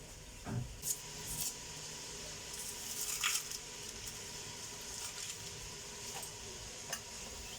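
Small knocks and scrapes of kitchen handling, a few separate sounds, as a small onion is picked up and readied for the spice mix.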